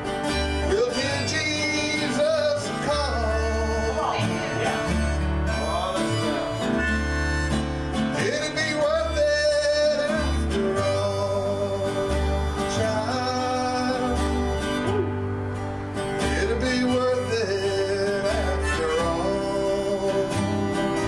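Country gospel song: a man singing and strumming an acoustic-electric guitar through a PA, with a steady bass line underneath.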